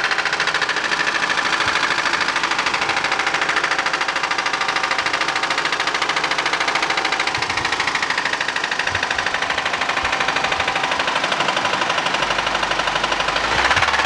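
Honda Civic four-cylinder engine running with a steady, rapid knocking from the bottom end: really bad rod knock.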